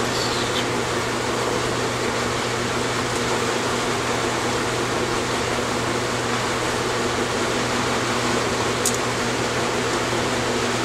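Steady whir and hum of a running fan, with one light click about nine seconds in.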